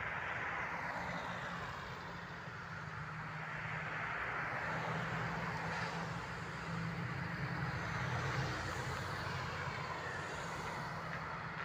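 Road traffic: cars passing close one after another on a wet, slushy road, each a swell of tyre hiss that rises and fades, over a steady low engine rumble.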